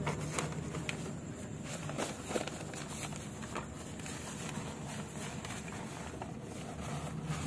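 Faint handling noise from a paper typing practice book being moved and its pages turned: scattered soft clicks and paper rustles over a low steady hum.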